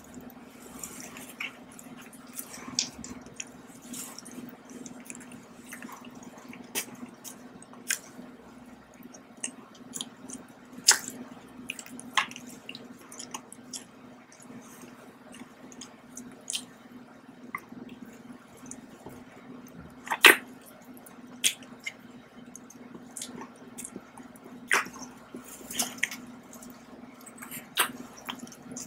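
Close-miked chewing and wet mouth sounds from someone eating a chocolate-coated pie and small biscuits, with scattered sharp clicks and crunches at irregular intervals. A steady low hum runs underneath.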